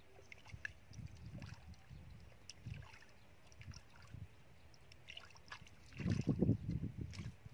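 Wet mud and shallow muddy water squelching and sloshing as hands dig and grab in it, in irregular low pulses with a few small clicks, getting louder near the end.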